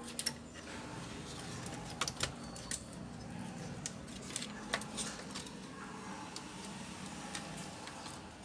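Scattered sharp clicks and light taps of a Toshiba Satellite C640 laptop's motherboard and plastic chassis being handled as the board is lifted out of the base, over a low steady hum.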